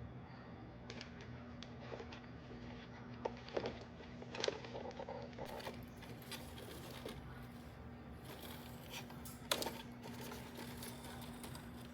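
Faint scattered clicks and light rustling over a low steady hum, with a few sharper ticks about three, four and a half, and nine and a half seconds in.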